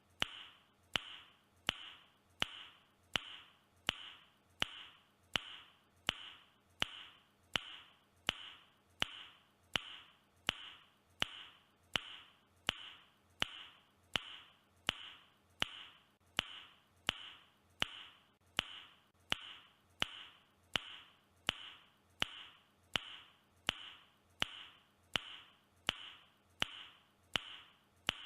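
A mouth click repeated at an even pace, about one and a half clicks a second, each click sharp and short.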